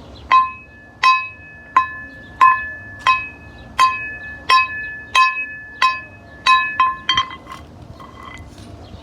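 A bell-like chime tone struck over and over at the same pitch, about one and a half strikes a second, each ringing briefly, with a quick run of strikes near the end.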